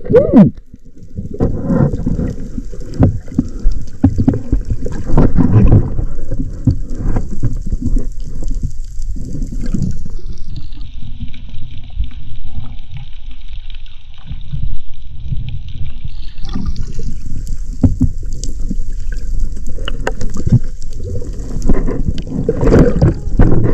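Muffled underwater sound from the camera housing: water rushing and gurgling, with frequent knocks and clatters as the speared fish, shaft and spear gun are handled.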